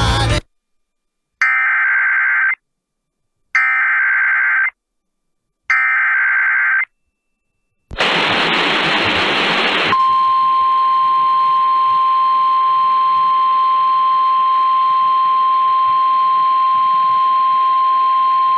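Emergency alert radio signal: three bursts of warbling digital data tones, each about a second long with silence between, then about two seconds of static, then the NOAA Weather Radio warning alarm, one steady high tone held over hiss. These are the coded header and the alert tone that open a new weather warning broadcast.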